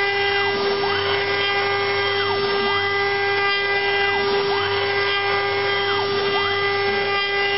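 CNC router spindle whining steadily at high speed while cutting a groove in a cylindrical workpiece on the rotary 4th axis. Over the whine, the axis motors rise and fall in pitch roughly every two seconds as the axes move back and forth.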